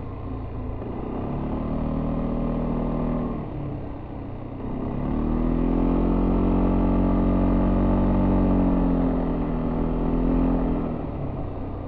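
Yamaha Tricity 300 three-wheeled scooter's single-cylinder engine with its stock exhaust, heard on board while riding. The throttle opens twice: a short rise in the engine note, an easing off, then a longer, louder pull that backs off again near the end.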